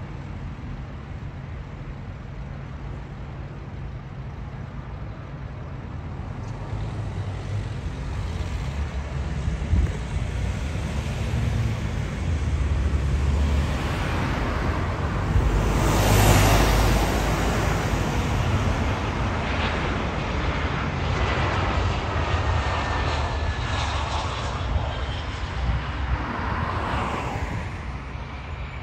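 Jet airliner coming in to land: its engine roar builds, peaks a little past halfway, then fades with a faint falling whine. Low wind rumble on the microphone runs underneath.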